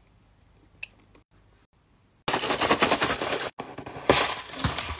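Plastic candy packaging crinkling and tearing as it is pulled open by hand: a dense, rapid crackle that starts abruptly about two seconds in, after a near-quiet stretch, and is loudest near the end.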